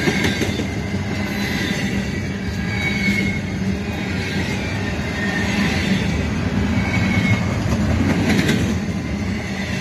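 Double-stack intermodal container well cars of a freight train rolling steadily past: a continuous rumble and rattle of steel wheels on rail, with a few brief high-pitched wheel squeals.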